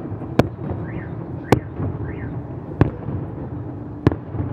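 Aerial firework shells of a fireworks salute bursting, four sharp bangs about a second and a quarter apart over a steady background noise.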